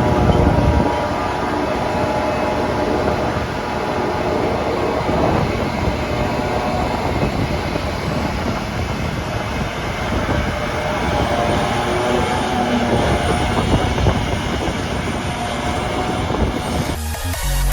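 Heavy farm machinery running under load during grass chopping: the engines of a self-propelled forage harvester and tractors, a dense, steady mechanical noise with faint engine tones drifting up and down.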